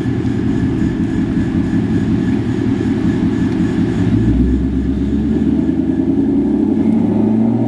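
2018 Ford Mustang GT's 5.0-litre V8 through a straight-piped exhaust, mufflers deleted with an X-pipe, running at low revs as the car rolls slowly past. Its deep rumble grows stronger about four seconds in.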